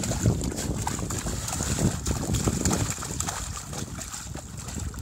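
Siberian husky pawing and splashing in a shallow rain puddle: irregular water splashes, busiest in the first few seconds, then thinning out.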